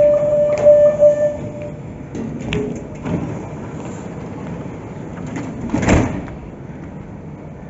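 Metro train's door-closing warning tone beeping for the first second and a half, then the red sliding doors running shut, ending in a loud thump a little before six seconds in as they close fully.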